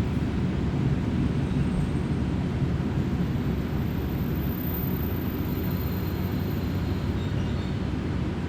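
Kominato Railway diesel railcar running along the line, heard from inside the cabin: a steady low rumble of engine and wheels on rail. A thin high whine comes in faintly for a few seconds in the middle.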